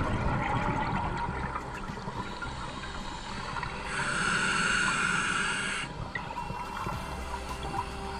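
Scuba diver breathing through a regulator underwater: exhaled bubbles burbling, then a hiss of inhalation starting about four seconds in and cutting off about two seconds later, then bubbles again.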